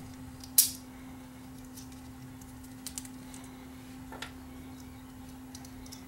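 Small plastic clicks as the housing of a ceiling fan's pull-chain speed switch is pried apart: one sharp snap about half a second in, then a few faint ticks.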